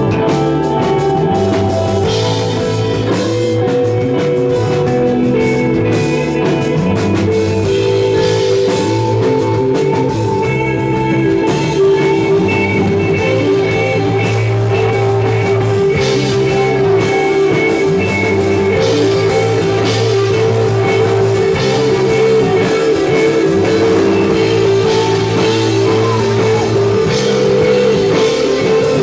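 Psychedelic rock band playing live, with no vocals: electric guitar holding long notes over a bass line that changes note every couple of seconds, with drum kit and cymbals.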